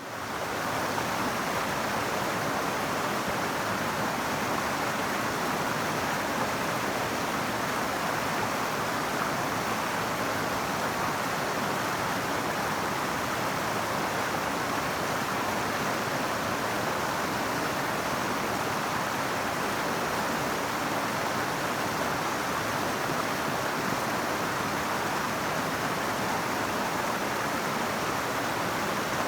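River water flowing, a steady rushing wash.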